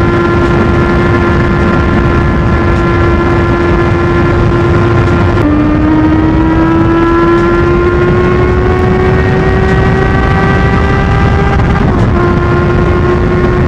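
Aprilia Tuono V4's V4 engine pulling at a steady road speed under heavy wind rush. About five and a half seconds in, the engine note steps down with an upshift and then climbs slowly as the bike accelerates. It dips slightly again near the end.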